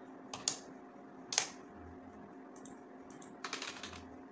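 Computer keyboard keystrokes: a couple of separate key clicks, the loudest about a second and a half in, then a quick run of keystrokes near the end, over a faint steady hum.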